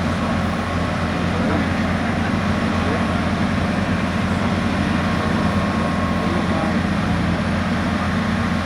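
An off-road 4x4's engine running steadily, a loud, even low rumble with no clear revving.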